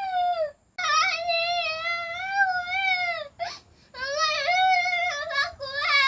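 A child's high voice holding long, wavering, drawn-out notes, several in a row with short breaths between.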